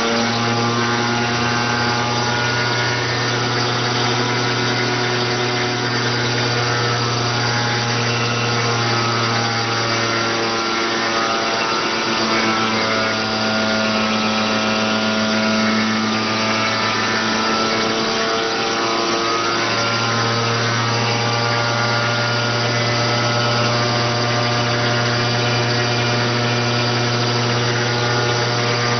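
50cc two-stroke scooter engine with a racing kit running at high revs under load on a dynamometer, a steady loud note with slight shifts in pitch about ten and twenty seconds in.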